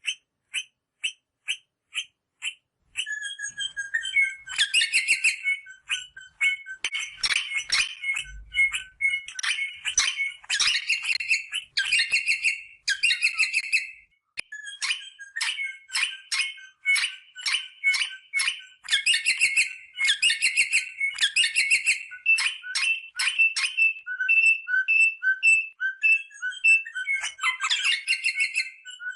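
Rosella parrots calling. It opens with a run of short, evenly spaced notes, about three a second, and from about three seconds in turns to dense chattering mixed with repeated piping whistles.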